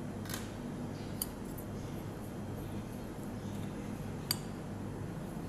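A spoon stirring a moist shredded mixture in a glass mixing bowl, clinking against the glass three times, sharpest about four seconds in. A steady low hum runs underneath.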